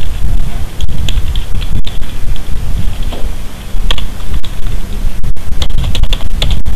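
Computer keyboard typing: irregular key clicks over a constant low background rumble.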